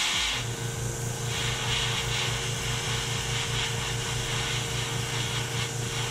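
Airbrush spraying opaque black paint, a steady hiss that swells and eases as the trigger is worked, over a steady low machine hum that comes in about half a second in.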